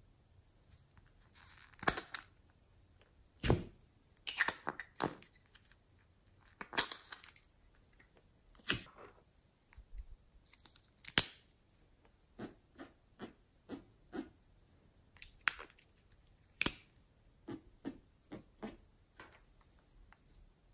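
Small hard-plastic containers being handled: irregular sharp clicks and knocks, a few followed by short scraping rustles.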